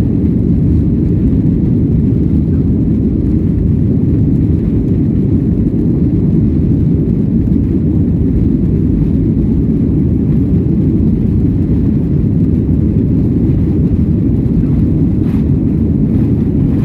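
Boeing 737 jet engines and rushing air heard inside the passenger cabin as a loud, steady low rumble during departure.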